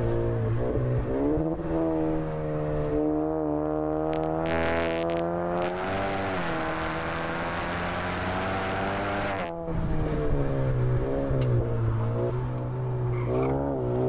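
Tuned turbocharged 2.0-litre four-cylinder of a Honda Accord 2.0T, with aftermarket turbo and exhaust, pulling hard on a track lap: the revs climb steadily under full throttle, with a loud rush of wind over the outside-mounted microphone at high speed. About nine and a half seconds in the throttle shuts abruptly and the revs fall as the car brakes for a corner, then climb again near the end.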